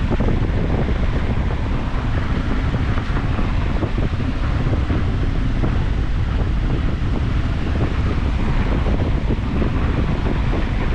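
Wind buffeting the microphone: a steady, rumbling noise without pauses.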